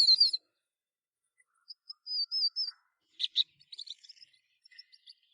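Young fledgling songbirds giving thin, high chirps in short strings, separated by pauses, with a few brief sharp ticks just after three seconds in.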